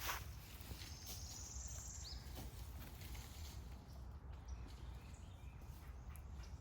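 A high, quick bird trill about a second in, lasting just over a second and ending in a short falling chirp, over a steady low rumble, with a sharp click at the very start.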